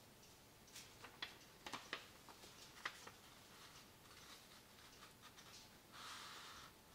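Faint sounds of a sheet of paper being handled and folded on a wooden table: a few light taps and crinkles in the first few seconds, then a short rustle of paper near the end as the fold is pressed down.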